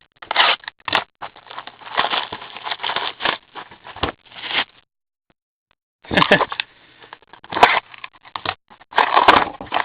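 Plastic wrapping of trading card packs crinkling and rustling in hand as a new box of cards is opened, in short irregular bursts; the sound drops out entirely for over a second in the middle.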